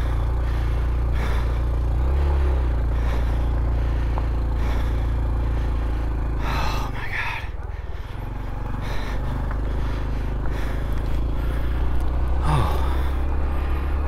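Honda CT125's small single-cylinder engine running at a low, steady speed, dipping briefly about halfway through, with a couple of short gasps over it.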